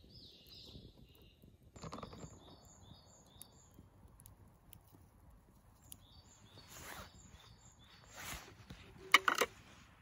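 Ground coffee tipped and shaken from a glass jar into a paper filter dripper, with rustling, light scrapes and a few sharp clinks near the end that are the loudest sounds. Birds sing short repeated chirping phrases in the background.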